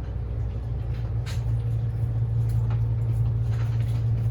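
Cabin noise inside a Kintetsu 80000 series Hinotori limited express electric train under way: a steady low drone of running noise with a few faint ticks.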